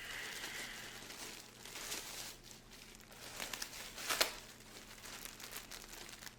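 Packaging crinkling and rustling as a fan-mail parcel is handled and opened by hand, with a few louder crackles, the loudest about four seconds in.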